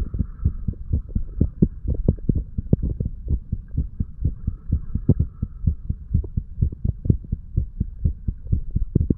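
Human heartbeat recorded at the chest, with a steady run of low, dull thumps. It is the heart of a 35-year-old man under the influence of alcohol.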